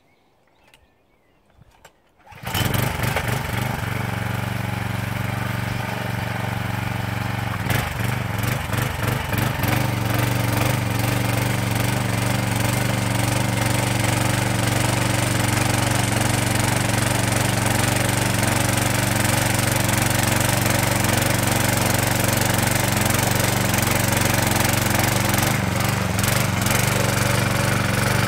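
A Mountfield M1 Monarch tiller's 4 hp Briggs & Stratton engine starts up about two seconds in and then runs at a steady speed while the tines dig through soil. The running note is briefly uneven a few seconds later before settling.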